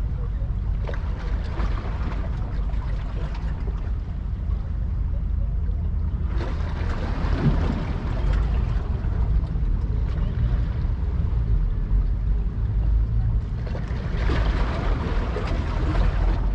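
Steady low rumble of wind on an outdoor microphone, with three swells of louder hiss, about a second in, around six seconds in, and near the end.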